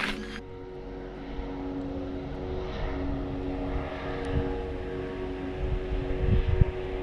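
A steady engine drone holding several constant tones, with a low rumble beneath it that swells near the end.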